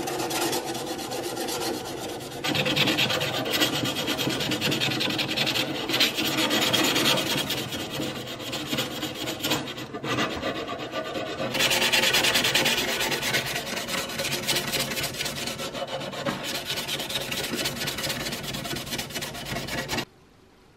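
Hand sanding of metal: a piece of sandpaper rubbed briskly back and forth along the metal tubes and base of an old kerosene lamp, a continuous rasping scratch that swells louder in stretches and cuts off abruptly near the end.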